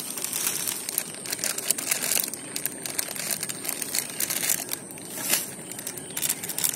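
A hand squeezing and kneading wet, grainy fishing bait mash in a stainless steel bowl, making a continuous run of short, irregular wet crackles.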